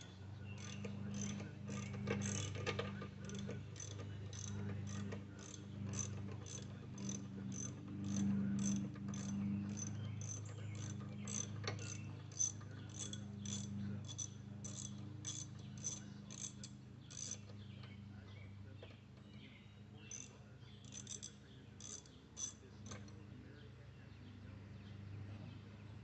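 Hand ratchet clicking in an even run of about three clicks a second as a fastener is backed out during disassembly. It stops after about 17 s and clicks again for a few seconds shortly after. A steady low hum runs underneath.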